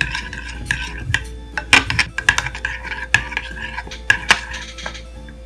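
A spoon stirring glue in a bowl, knocking and scraping against the bowl in quick, irregular strokes.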